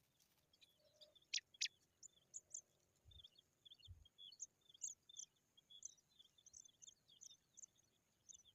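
Faint, high-pitched chirping of small birds: many short notes in quick succession, with two louder, sharper notes about a second and a half in.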